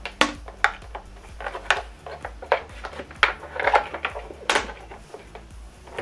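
Irregular plastic clicks and knocks from handling an LG S65Q soundbar while an optical (TOSLINK) cable plug is fumbled into its cramped optical-in port, roughly one knock every half-second to second.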